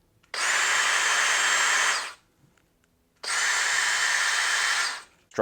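DeWalt DCD709 Atomic compact cordless hammer drill spinning with no load in two steady bursts of a little under two seconds each, its motor whining evenly, while the chuck is checked for wobble.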